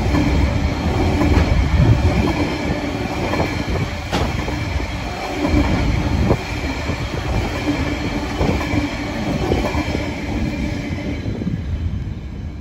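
Loaded grain-train hopper wagons rolling past on the rails: a continuous rumble of steel wheels with a thin steady whine and a few sharp knocks from the rail joints. The noise thins out near the end as the last wagon passes.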